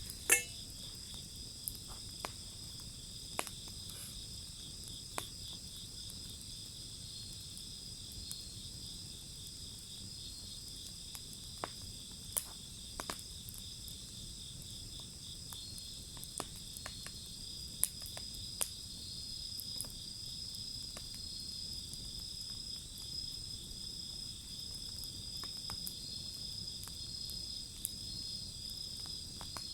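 Wood fire crackling, with sharp pops now and then, over the steady chirping of crickets.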